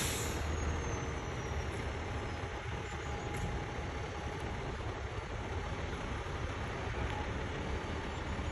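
Dump truck's diesel engine running steadily as it unloads logs, a low even rumble.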